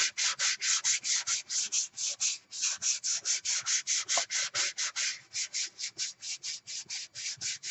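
Wet 400-grit sandpaper rubbed by hand in quick back-and-forth strokes, about six a second, on the painted Bakelite cabinet of a 1950 Zenith G516 clock radio: wet sanding off paint overspray.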